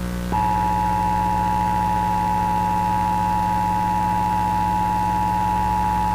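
Emergency Alert System attention signal: a steady two-tone alert tone that switches on about a third of a second in and holds, over a low steady hum.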